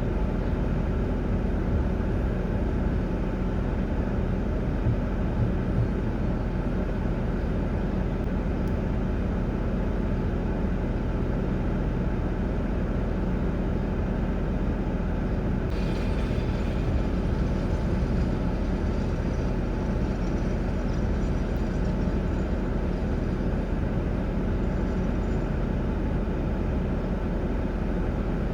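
Steady low rumble of a running vehicle or traffic, with a light hiss joining about halfway through.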